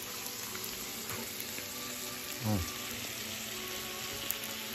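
Meat and vegetables sizzling steadily on a tabletop grill, with a brief voice sound about two and a half seconds in.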